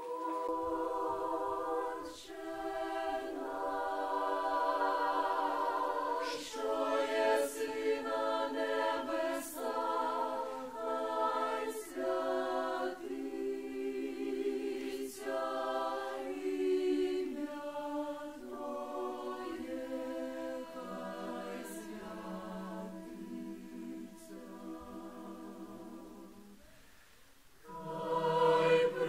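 Mixed choir of men and women singing a cappella in sustained chords, phrase after phrase. The singing grows softer, breaks off briefly near the end, then comes back in louder.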